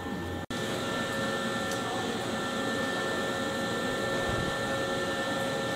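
Steady mechanical hum and whir of an electric train's onboard equipment at a standstill, several steady tones over a constant rush. It cuts out for an instant about half a second in.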